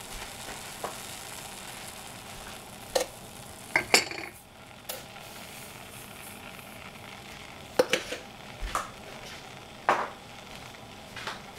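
Steady hiss of a gas hob burning under the pans, with a few sharp clinks and knocks against a stainless steel saucepan as sugar is poured over cut fruit, about three seconds in and again near the end.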